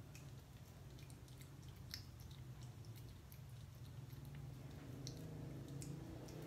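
A cat licking and eating from a small spoon: faint, scattered little wet clicks of its tongue and mouth over a low steady hum.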